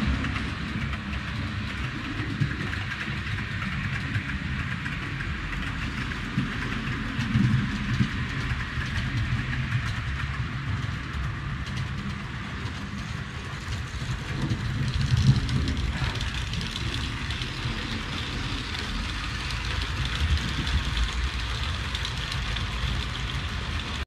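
Model trains running on a large layout: a steady low rumble of wheels and motors on the track, swelling briefly about seven and fifteen seconds in.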